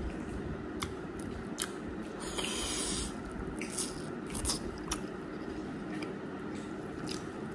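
Close-up eating sounds: wet chewing and mouth smacking as a piece of beef is bitten and gnawed off the bone, with scattered sharp clicks and a short hiss a little over two seconds in.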